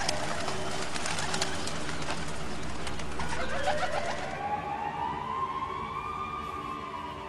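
A flock of pigeons taking off, wings clapping and flapping in a rapid rush of clicks that thins out after about four seconds. Over it, from about halfway, a siren's wail rises slowly, holds and starts to fall.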